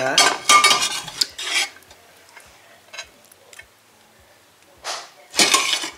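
Metal ladle scooping chicken tinola soup out of a metal pot, scraping and clinking against the pot for the first second and a half. A few light taps follow, then two short scrapes near the end as the ladle serves onto a plate.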